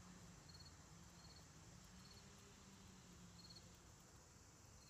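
Near silence: a low steady hum, with a faint high cricket chirp of a few quick pulses repeating every second or two.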